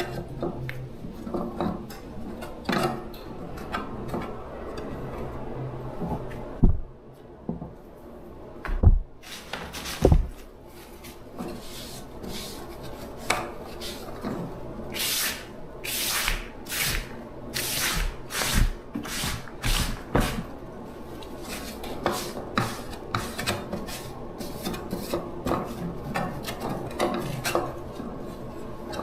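Repeated scraping and rubbing strokes of hand work on parts, with a few heavy knocks about seven to ten seconds in. A faint steady hum runs underneath.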